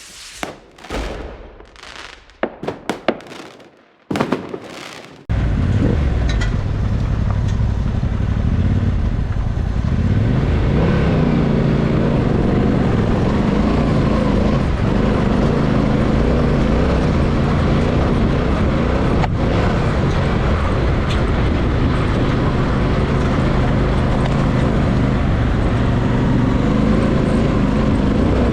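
Motorcycle engine running under way with wind on the microphone, its pitch rising and falling gently with the throttle. It is preceded by about five seconds of short, sharp whooshing bursts.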